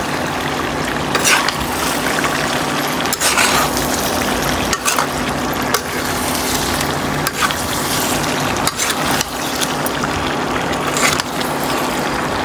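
Chicken pieces frying in masala in a metal kadhai, sizzling as a flat metal spatula stirs them, with short scrapes and knocks of the spatula against the pan every second or two. A faint steady hum runs underneath.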